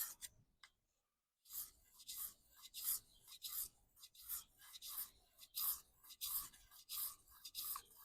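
Knife blade being sharpened: the edge rasps in a steady run of strokes, about two a second, after a short silent pause near the start. Pressure goes on the down stroke only, one section of the edge at a time.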